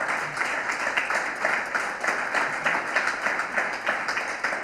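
Audience applauding: many hands clapping in a dense, steady patter that begins to ease off near the end.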